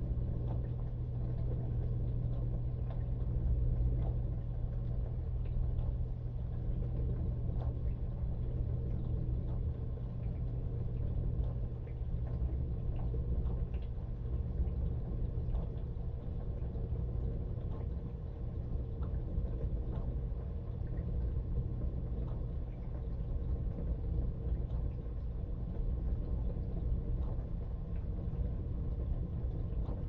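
A dishwasher running, heard from inside the tub: a steady low hum and rumble of its pump motor, with faint scattered ticks throughout.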